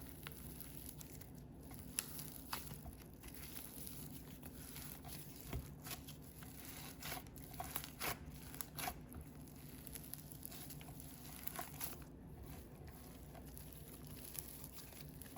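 Store-bought slime with big foam balls mixed in, being folded and squished by hand: faint, scattered crinkly crackles and small pops.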